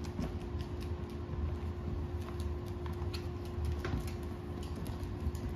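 Light, scattered clicks and taps on a hardwood floor from footsteps and a small dachshund's claws, over a steady low hum.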